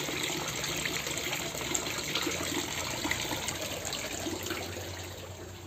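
Koi pond water splashing and trickling as a hand stirs it among koi crowding the surface, with small scattered splashes; it grows quieter near the end.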